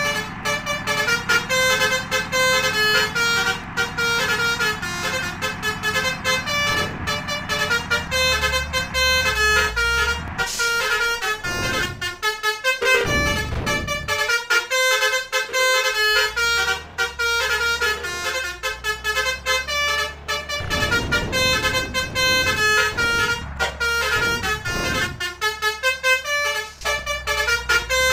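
Bus 'telolet' basuri musical horns playing quick, stepping multi-note melodies nearly without pause, over low road-traffic rumble, with a few whooshes of passing vehicles.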